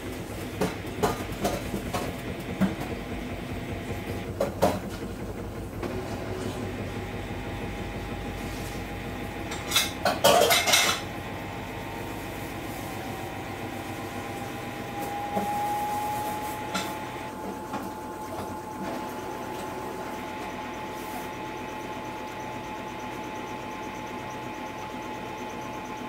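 Samsung front-loading washing machine running a cycle, with a steady hum and the drum turning with scattered clinks and knocks. There is a louder clatter about ten seconds in. A little later a steady whine rises slightly and then holds.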